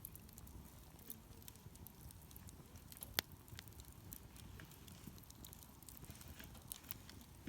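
Wood campfire crackling: scattered small snaps and ticks, with one sharper pop about three seconds in.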